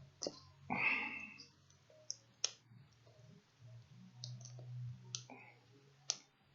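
A few small, sharp clicks and a brief scraping rustle as a laptop's display video-cable connector and the tape over it are handled and worked loose, over a faint low hum.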